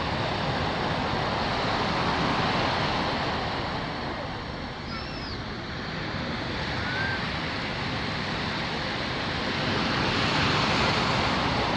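Surf washing onto a sandy beach, a steady rush that swells, eases and swells again.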